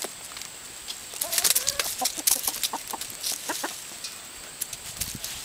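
Chickens clucking, with a burst of short clucks that bend in pitch about a second in. Sharp clicks are scattered through the calls.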